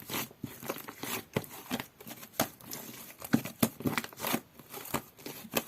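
Clear slime being squished and pressed by hand, giving irregular sticky pops and crackles, several a second.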